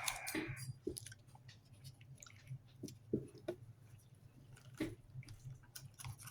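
Chewing a cracker spread with cheese: quiet mouth sounds with scattered small clicks and taps, over a faint steady low hum.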